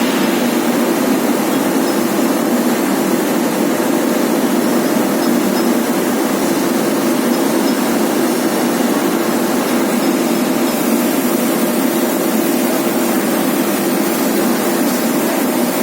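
Industrial component washing machine running: a loud, steady, unchanging machine noise.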